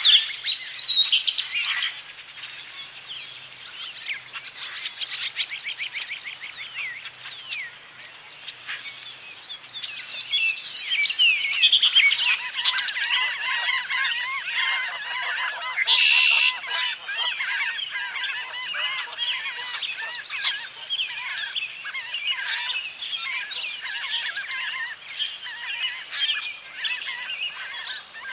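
Mixed spring evening bird chorus with Canada geese honking among the calling songbirds. The calling grows denser about halfway through.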